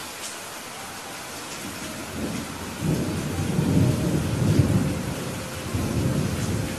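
Steady rain hissing, with a low rumble of thunder that rolls in about three seconds in, swells and then dies away near the end.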